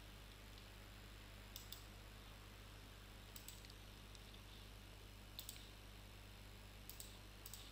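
Computer mouse clicking: about five quick double clicks, spaced one to two seconds apart, over near silence with a faint steady low hum.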